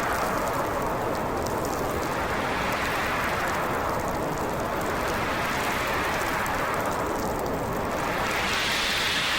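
Snowstorm wind gusting as a steady rushing noise that swells and eases every few seconds, rising higher in pitch near the end.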